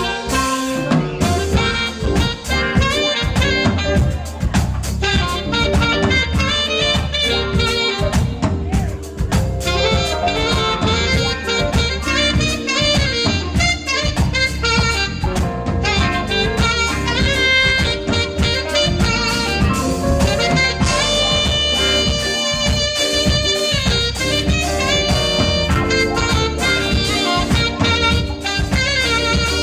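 Saxophone playing a jazz melody line over a band with drums and bass keeping a steady groove.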